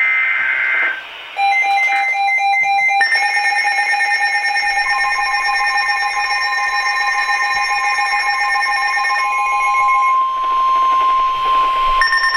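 Emergency Alert System alert: about a second of warbling digital header tones, then short pulsing beeps, then the steady two-tone EAS attention signal with a rapid flutter. The tones shift near 9 s and again near 12 s, announcing the next flash flood warning.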